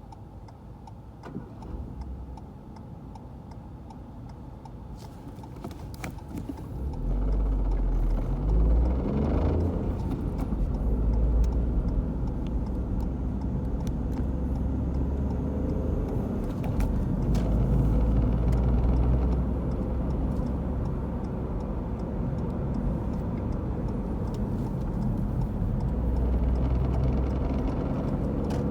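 A 2018 Ford Fiesta 1.1 three-cylinder heard from inside the cabin, running quietly at first and then pulling away and driving on from about seven seconds in, its engine rising in pitch as it accelerates. Over the engine and road rumble comes scattered clicking from the cable-operated gear shift, a rattle and vibration that the owner takes for a defect.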